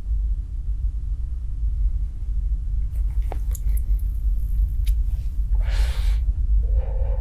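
A steady low rumble, with a short breathy exhale about six seconds in: a man letting out a drag of cigarette smoke.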